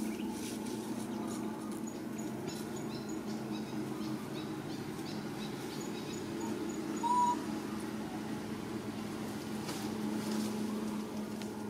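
Steady outdoor background hum with faint scattered clicks, and one short, slightly rising animal call about seven seconds in.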